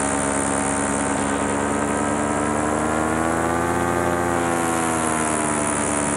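Paramotor engine and propeller running steadily in flight, with a drone that rises a little in pitch about three seconds in and eases back down near the end.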